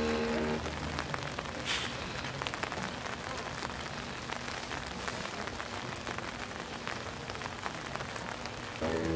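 Steady rain falling, with scattered sharp drop hits. A held chord from the marching band cuts off just after the start, and the band comes back in near the end.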